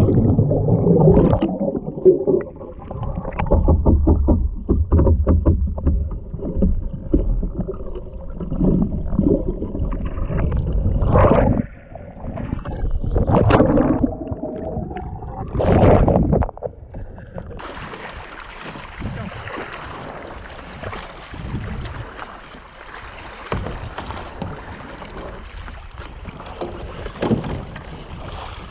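Muffled underwater sound of a capsized sea kayak: gurgling water with knocks and a few loud surges for about the first sixteen seconds. Then the kayak is upright and the sound turns to a steady open-air hiss of wind and lapping water.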